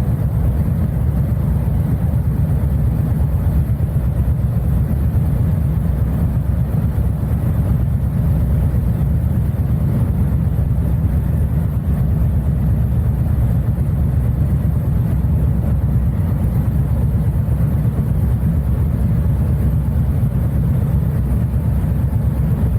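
Steady low rumble of wind buffeting the microphone over a running vehicle, with no break or change in pitch.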